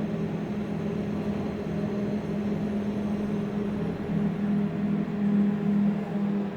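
KONE MonoSpace lift running, a steady droning hum that swells a little about four seconds in.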